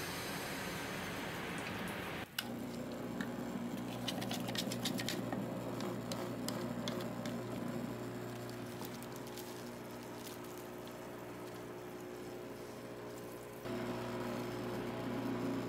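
Dental lab vibrator humming steadily while a bowl of freshly mixed dental stone is held on it, its buzz shaking the stone. A quick patter of clicks comes a few seconds in, and near the end the hum gets louder with a changed tone as an alginate impression is held on the vibrator to be filled.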